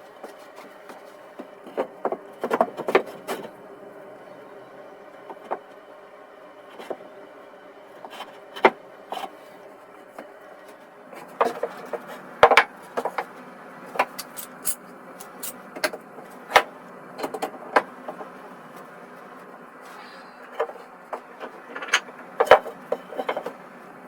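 Light clicks and knocks of small hard objects being handled and set down on a workbench, coming singly and in short clusters, over a steady background hum.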